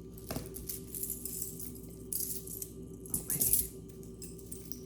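Stone-bead bracelets and jewelry pieces clinking and rattling against each other as they are handled and set down, a run of small sharp clicks with the busiest, loudest jangle about three seconds in. A faint steady hum lies underneath.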